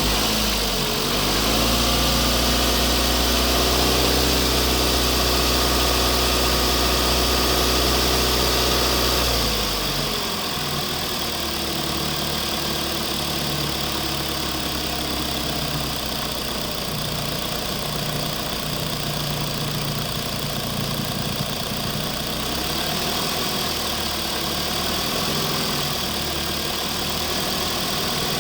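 Engine sound of remote-control construction machines running steadily; the pitch rises slightly near the start, holds, then drops and gets a little quieter about ten seconds in.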